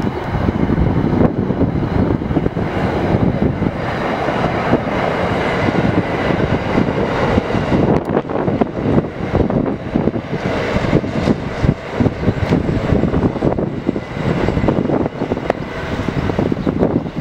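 NJ Transit train rumbling past on elevated track, hauled by an ALP-45DP dual-mode locomotive running on diesel, with a steady mix of engine drone and wheel-on-rail noise.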